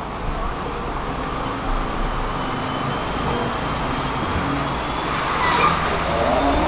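Articulated city bus pulling in to a stop, its engine running, with a short hiss of air from the brakes about five seconds in.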